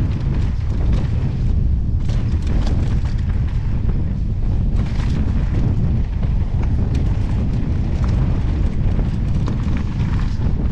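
Ride noise from a helmet camera on an Evil Wreckoning mountain bike descending a loose stone trail: a steady low rumble of wind buffeting and tyres on gravel, with frequent sharp clicks and clatters from the bike and stones.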